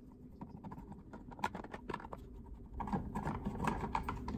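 Screwdriver turning out screws from the plastic motor cover of a Suncast Aquawinder hose reel: small scattered clicks and scrapes of metal on plastic, growing busier and louder about three seconds in as the parts are handled.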